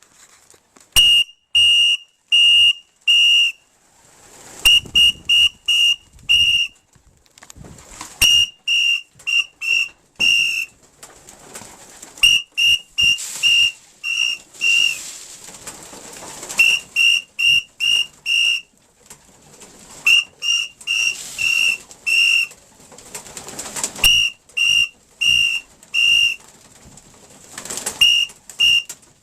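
A whistle blown in short, piercing blasts of one steady pitch, in groups of three to five with brief pauses between groups: the feeding call that tells young racing pigeons to come down into the loft.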